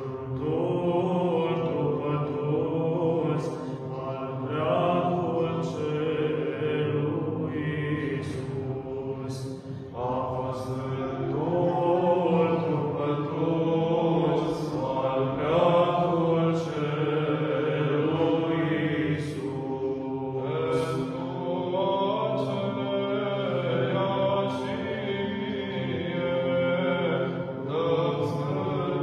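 A small choir of men's voices singing Orthodox Byzantine chant: a held low drone (ison) sustained under a slowly moving melody.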